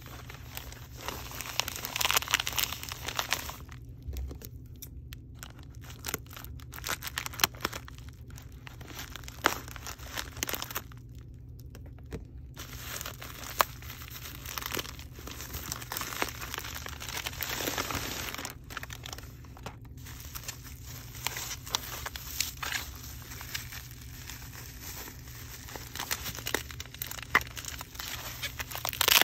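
A plastic poly mailer being cut open with scissors and handled, its plastic crinkling and rustling with scattered snips and clicks, then the rustle of bubble wrap as the wrapped package is pulled out.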